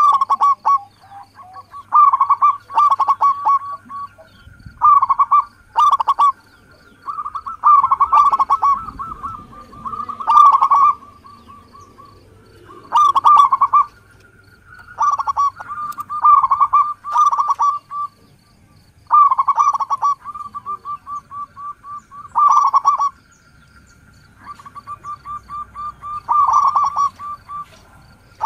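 Zebra doves (Indonesian local perkutut) cooing: repeated phrases of quick staccato notes, each about a second long with short gaps between them, over a fainter continuous trill.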